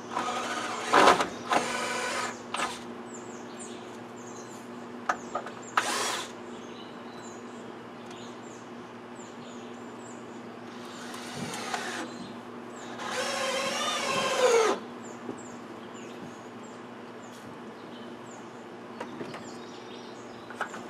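Handheld power drill run in five short bursts, its motor whining: two in the first few seconds, one brief burst a few seconds later, and two more past the middle, the longest of which drops in pitch as it ends.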